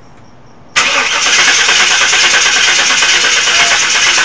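Chevrolet Tahoe engine being cranked over by its starter, starting suddenly about a second in and turning steadily without catching. Typical of a no-start; the owners first suspect no fuel, then no spark.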